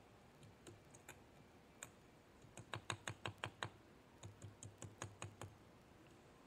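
Quick runs of light, sharp taps from a hand tool against the wooden fence boards: a few scattered clicks, then two fast bursts of about seven taps a second near the middle.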